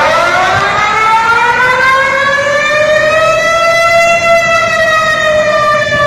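Warning siren sounding one long wail: its pitch climbs slowly for about four seconds, then begins to sink.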